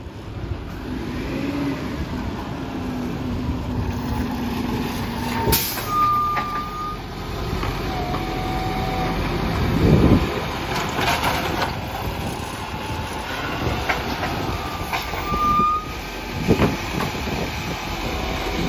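Volvo side-loading garbage truck's diesel engine running as it pulls up and works its automated bin-lifting arm, with a brief air-brake hiss and heavy clunks, the loudest about halfway through.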